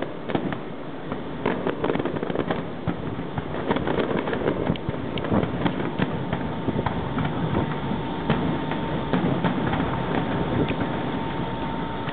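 Distant aerial fireworks display: a continuous run of bangs and crackling pops from bursting shells.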